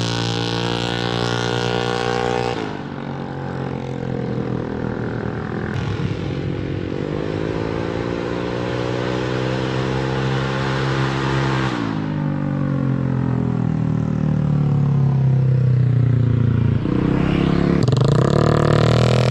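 Motorcycle engine revving through an aftermarket Samlong exhaust. The pitch drops sharply as the throttle closes about 2.5 seconds in and again about 12 seconds in, then climbs slowly back up each time.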